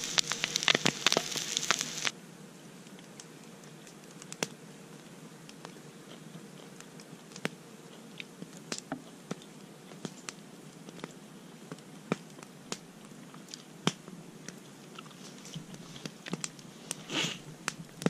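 Eggs and bacon sizzling in a cast-iron pan on a campfire, which cuts off abruptly about two seconds in. After that it is quieter, with scattered sharp crackles and pops from the campfire and the sounds of someone biting and chewing food.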